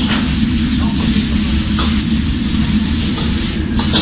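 Food sizzling and frying in a wok as a metal ladle stirs it, the ladle clanking against the wok a few times, over a steady low rumble.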